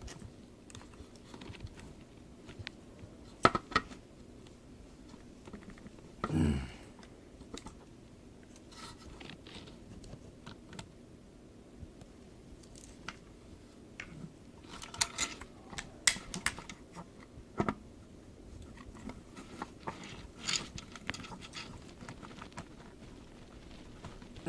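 Scattered sharp clicks and taps of hands working on the plastic parts of a toy RC truck's gear case and motor, with a quick cluster of them near the middle. A brief louder sound that falls in pitch comes about six seconds in.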